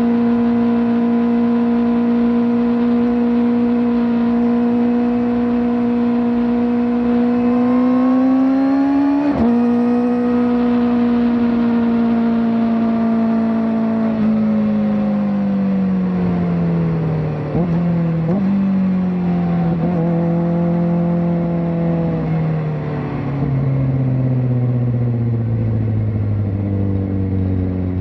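Kawasaki ZX-4RR's 399 cc inline-four through a slip-on exhaust, held at steady high revs, climbing a little, then dropping sharply in pitch about nine seconds in at a gear change. Through the second half the revs ease down, with two short blips near the middle, and keep falling as the bike slows.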